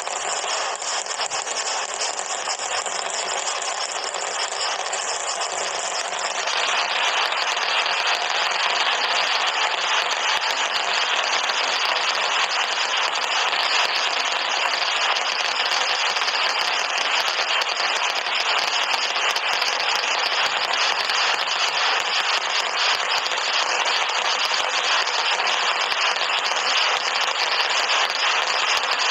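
Fireworks going off continuously as a dense, distorted crackle of many firecrackers with no breaks. It grows louder about six seconds in.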